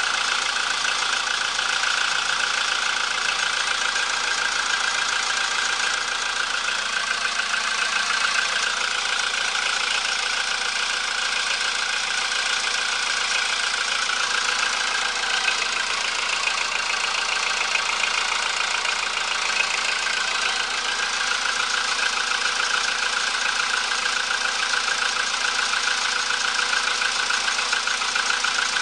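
Volkswagen Polo engine idling steadily while warming up after a cold start, with a light rattle that the owner takes for a worn timing chain or chain tensioner.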